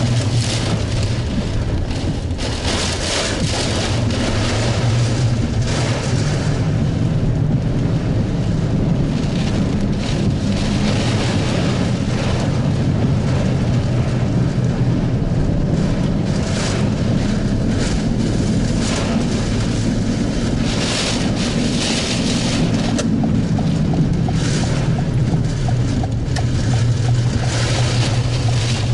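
Heavy wind-driven rain in strong gusts, surging in loud hissing waves every few seconds over a constant low rumble.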